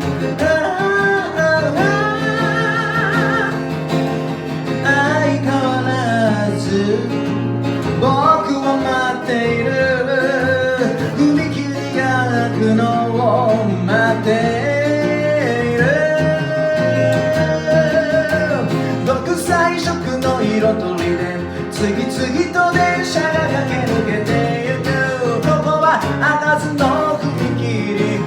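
Acoustic guitar accompanying a sung melody with held, wavering notes.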